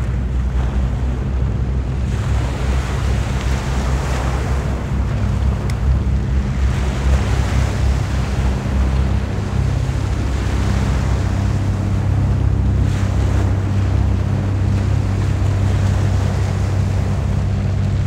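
Small waves washing in and draining back over a pebble beach, swelling every few seconds, with wind rumbling on the microphone and a steady low hum underneath.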